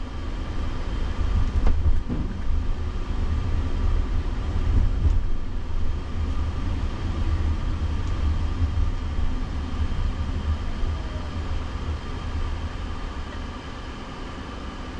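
Road and tyre noise inside the cabin of a moving Jaguar I-PACE electric car: a steady low rumble with a few faint steady tones above it, getting quieter over the last few seconds as the car slows in traffic.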